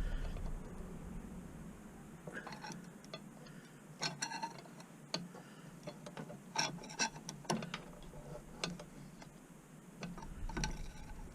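Irregular light metallic clicks and scrapes of a flat-bladed screwdriver being jiggled in a motorcycle's rear brake caliper to prise the pistons back.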